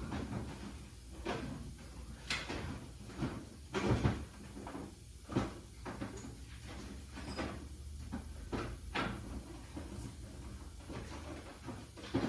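Rummaging through storage for a tube of dielectric grease: a string of irregular knocks and clatters as things are handled and moved about, with cabinet or drawer noises among them.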